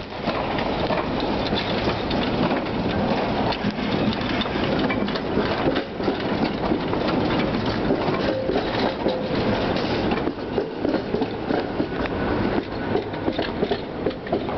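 Tatra T3 trams rolling slowly past, their steel wheels rumbling and clattering over rail joints and points, with sharp clacks coming more often in the last few seconds.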